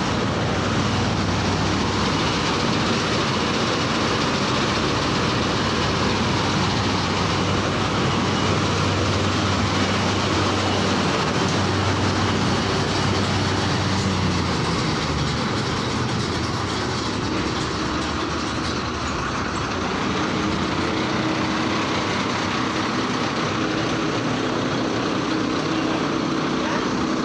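Harmeet combine harvester running, a steady loud drone of its engine and machinery.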